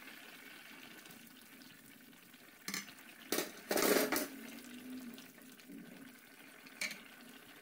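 Kidney bean curry bubbling faintly at a boil in an open pan, with a few short knocks and scrapes near the middle from the glass lid and a wooden spoon stirring.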